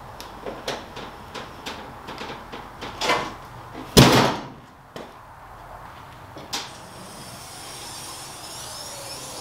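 Pop-top truck camper roof lid being lowered, with light clicks and knocks, then shutting with a loud thump about four seconds in. A further single knock follows a couple of seconds later.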